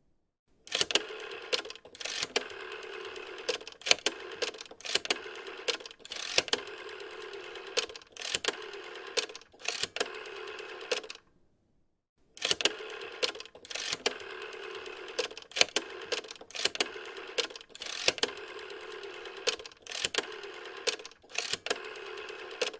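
Rotary telephone dial being turned and whirring back with a series of sharp clicks for each digit, one digit after another. About halfway through it stops for about a second, then another run of digits is dialled.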